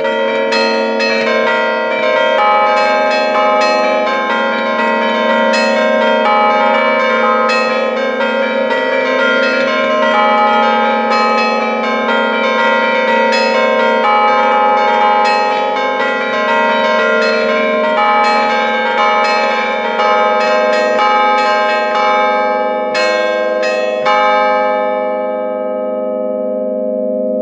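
A five-bell concerto in A-flat (Giorgio Pruneri bells, 1907) played by hand from a wooden lever keyboard in the bell chamber: fast festive allegrezze melodies struck close up. The strikes stop about 24 seconds in, and the bells ring on and fade.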